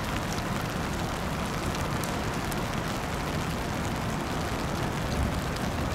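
Wind buffeting the microphone, an uneven low rumble under a steady hiss, with scattered faint ticks like raindrops in the wet weather.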